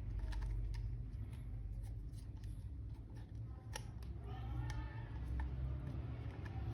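Light, irregular clicks and scrapes of hands handling a small plastic action figure and its packaging, over a steady low hum.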